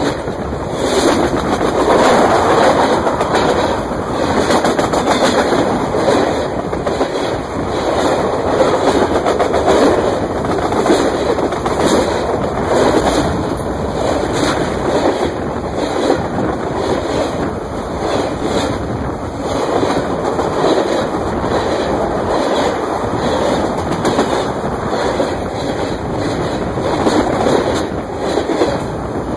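A train rolling directly over a camera lying on the track, a loud continuous rumble with a rapid, regular clatter of wheels passing overhead.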